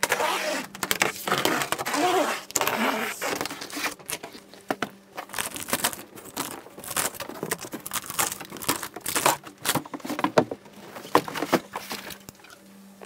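Cardboard carton and packing being opened and pulled away from a mower on its pallet: a dense rustle for the first few seconds, then many short knocks, clicks and scrapes as the packaging is taken apart and the mower is freed.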